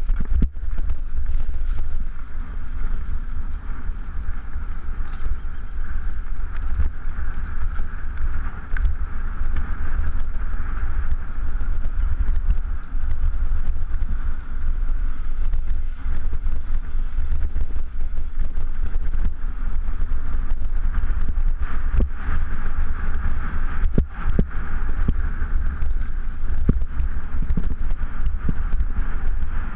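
Wind buffeting the microphone of a handlebar-mounted camera on a mountain bike being ridden fast over dirt and pavement, with a steady rumble and hiss from the ride and a few sharp knocks from bumps in the second half.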